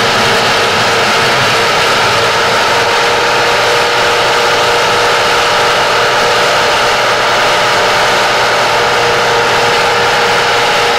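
Cameco two-row whole-stalk sugar cane harvester running as it cuts cane: a loud, steady engine and machinery noise with a constant whine.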